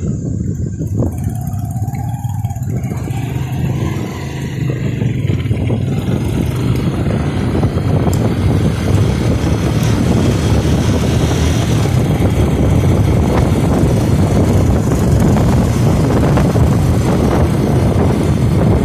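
Small motorcycle engine running under way, with wind and road noise on the microphone; the sound grows louder about four seconds in.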